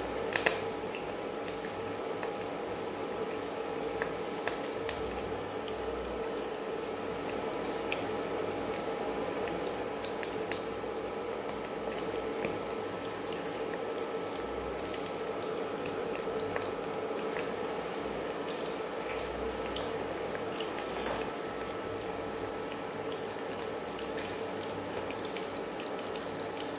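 Chicken pakoda pieces deep-frying in hot oil in an aluminium kadai: a steady bubbling sizzle with scattered small pops, over a faint steady hum. A utensil knocks against the pan just after it begins.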